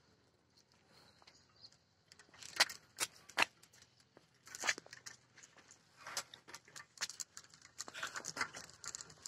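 Faint, irregular clicks and scuffs, several in quick succession, from a person walking along a paved road and handling the phone.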